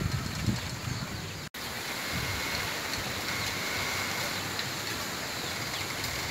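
Wind rustling through bamboo leaves and stems, a steady leafy hiss. A low rumble of wind on the microphone fades out in the first half second, and the sound cuts out for an instant about a second and a half in.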